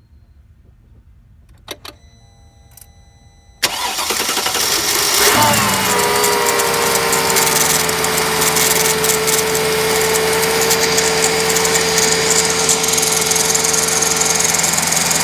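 2005 Mercedes S500's V8 engine being started: a short click and tone about two seconds in, then the starter cranks about three and a half seconds in, the engine catches and settles into a steady idle with a sustained tone above it. The accessory drive is making a grinding noise that the owner suspects comes from the water pump, since he noticed it after changing the alternator.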